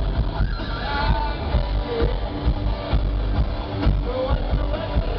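Live heavy metal band playing loud on a concert stage with a steady pounding beat and heavy bass, heard from the audience through the PA. The dull, cut-off top end is that of a phone recording.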